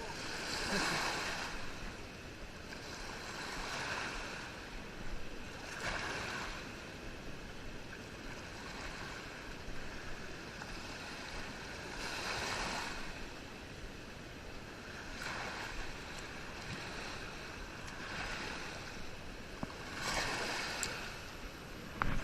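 Waves washing in on the shore: a steady rush of water, swelling louder every few seconds as each wave breaks.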